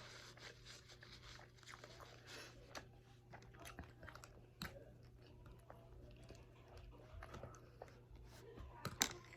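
Faint chewing and crunching of chicken wings, with many small mouth clicks and a sharp click near the end.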